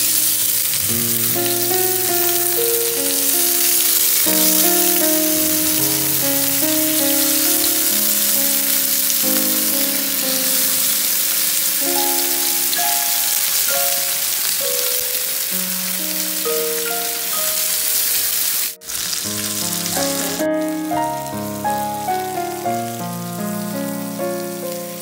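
Masala-coated fish sizzling in oil on a nonstick grill pan, a steady hiss, with background piano music. The sizzle cuts out for a moment twice, a little past the middle.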